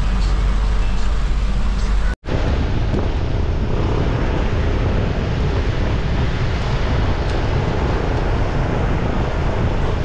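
Steady cabin noise from a vehicle driving in heavy rain: a low engine and road drone at first, then, after a brief break about two seconds in, an even rush of rain, tyre and wind noise.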